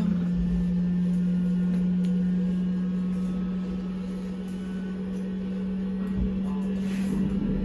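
Steady low electrical hum aboard a Sinara-6254 trolleybus: one constant droning tone over a low rumble, easing slightly in the middle and picking up again near the end.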